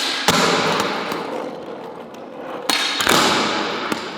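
CNC-cut billet skateboard hitting the ground hard twice, about three seconds apart. Each knock is followed by the noise of its wheels rolling, which fades away.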